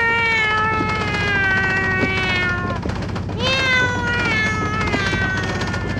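A treadle sewing machine running with a fast, even low rattle, under two long, high tones that each hold and slowly fall in pitch; the second begins about three and a half seconds in.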